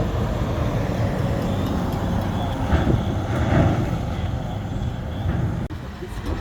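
Motor vehicle engine and road noise, a loud, steady low rumble that dips briefly near the end.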